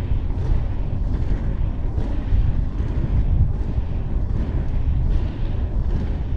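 Strong wind buffeting an action camera's microphone while inline skating: a steady, heavy low rumble. Over it, a lighter hiss swells and fades about once a second, in time with the skating strides.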